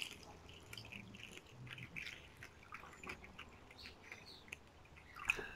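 Water poured from a plastic jug into a plastic zip-lock bag: a faint, irregular trickling.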